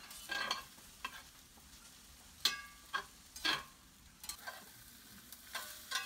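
A spatula stirring an egg scramble in a cast iron skillet: several short scrapes and knocks against the pan over a light sizzle of frying.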